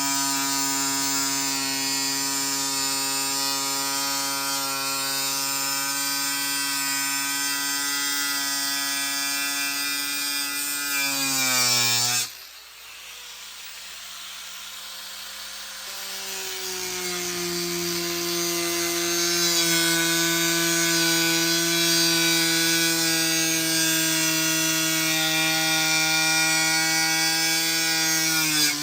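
Electric power tool's motor running steadily under load, winding down in pitch and stopping about twelve seconds in, then starting again, building up and running until it cuts off near the end.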